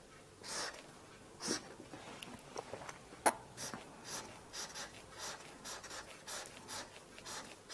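Dry-erase marker drawing short vertical lines on a whiteboard: faint strokes that come quicker in the second half, about two or three a second, with one sharper tap about three seconds in.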